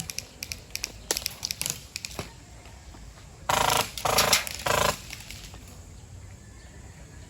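Three short bursts of airsoft gun fire about halfway through, each under half a second, with a run of sharp clicks and crackles before them.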